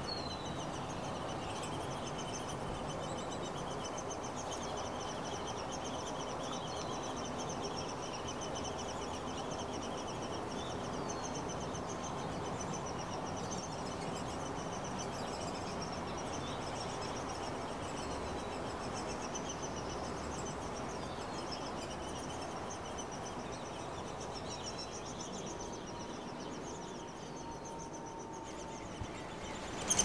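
Steady outdoor ambience: a low rushing background noise under a continuous high, pulsing buzz, with short downward bird chirps scattered every few seconds. A sudden louder burst comes right at the end.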